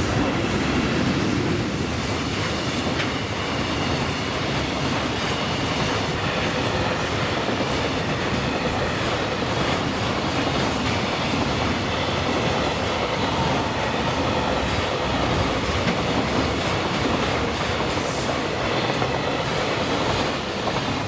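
A freight train of container wagons rolling past at speed, its steel wheels clattering steadily over the rail joints, with scattered clicks and a brief high squeal about eighteen seconds in.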